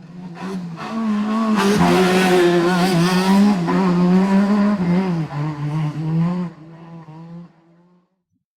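AI-generated sound effect of a car engine at speed, wavering in pitch. It swells up over the first couple of seconds and fades out near the end.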